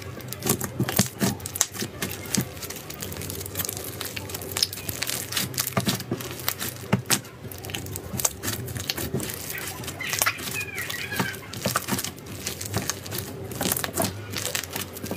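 Fluffy slime being squeezed, kneaded and stretched by hand, giving a dense, irregular run of sticky crackles and small popping clicks as air pockets burst and the slime pulls apart.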